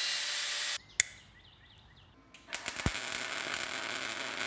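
Angle grinder's cutoff wheel whining as it cuts a slit in a metal pipe, stopping suddenly under a second in; a sharp click follows. About two and a half seconds in, a welding arc starts crackling steadily as the pipe is welded.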